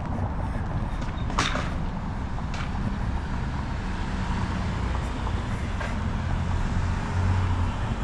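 Steady urban road traffic: a low hum of passing vehicle engines and tyres, with one short sharp click about a second and a half in.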